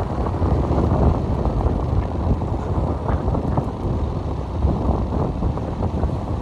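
Wind buffeting the microphone on a moving car, a steady loud rumble with road noise beneath it.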